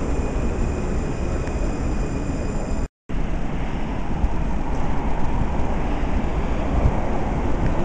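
Munich U-Bahn train running through a station, heard from inside the car as a steady noise. After a sudden cut about three seconds in, the rumble of a U-Bahn train approaching the platform through the tunnel.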